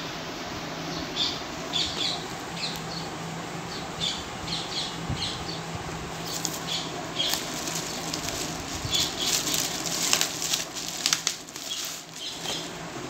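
Plastic bubble wrap crinkling and rustling as it is handled and pulled off a phone box, with some paper rustling; the crackle comes in short irregular bursts, thickest in the second half. A faint steady low hum runs underneath.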